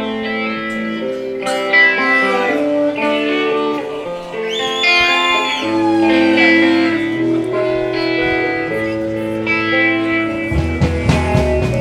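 A guitar-led instrumental intro to a song, cued by the performer, playing held chords and notes, with a sliding high line about halfway through.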